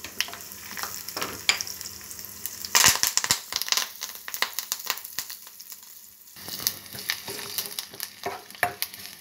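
Tempering spices (mustard seeds, cumin, fenugreek, dry red chilies, garlic) frying in hot oil in a small pan, crackling and popping. About three seconds in a loud burst of spluttering sizzle as fresh curry leaves hit the oil, then the crackle goes on under a spoon stirring the pan.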